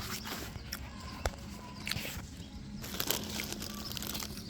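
Scattered light crinkles and crunches as a bag of Quavers crisps is handled and the crisps are eaten.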